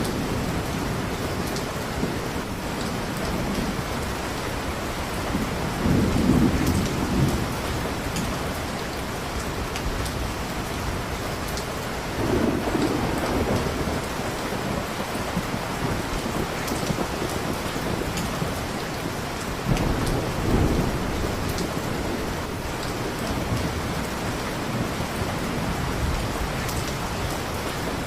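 Steady heavy rain, with low rolls of distant thunder rumbling up three times: about 6 seconds in, about 12 seconds in, and about 20 seconds in.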